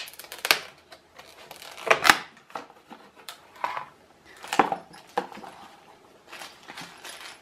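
Stiff clear plastic clamshell blister packaging being pried apart and handled: irregular sharp crackles and clicks, the loudest about two seconds in.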